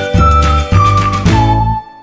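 Background music: a bass-heavy electronic tune with a high single-note melody stepping down in pitch, fading out near the end.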